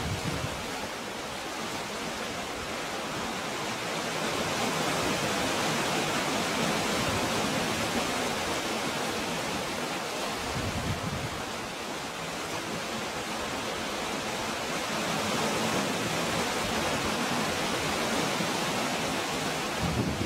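Sea water surging and washing over boulders and pebbles in a narrow rocky cove: a continuous rushing that swells and eases in slow surges.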